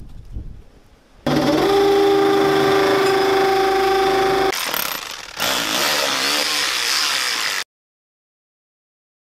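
Cordless power drill running with a steady whine, then a rougher, noisier stretch as it works; it cuts off suddenly into dead silence near the end.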